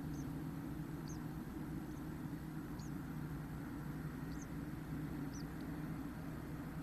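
Faint, short, high peeps from chestnut-backed chickadees in a nest box with newly hatched chicks, about one a second, over a steady low hum.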